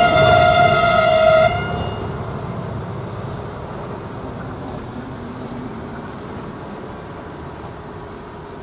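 Train horn sounding one steady tone that cuts off about a second and a half in, over the rumble of a passing train, which then fades away.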